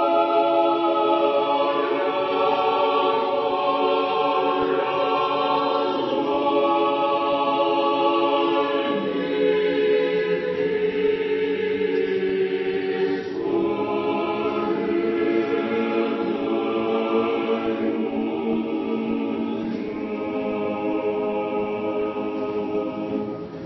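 Unaccompanied Orthodox church choir singing slow, held chords of funeral-service chant.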